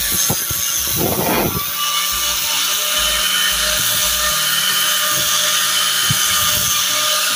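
Angle grinder with a smoothing sanding disc running at a steady high whine while it sands a wooden beam.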